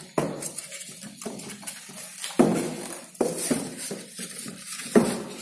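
Polystyrene foam packaging being handled on a wooden table, rubbing and rustling, with several sharp knocks, the loudest about two and a half and five seconds in.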